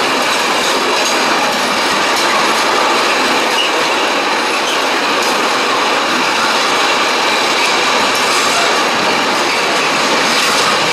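Empty flat wagons of a freight train rolling past close by: the steady, loud rolling noise of steel wheels on rail.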